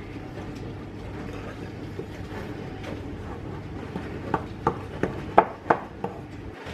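A wooden spoon stirring flour into cookie dough in a glass mixing bowl. In the second half it knocks sharply against the glass about six times in quick succession over a steady low background hum.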